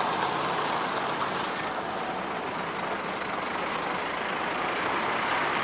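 Scania G410 truck's diesel engine running at low speed as the truck and trailer take a turn, mixed with steady wind noise on the microphone.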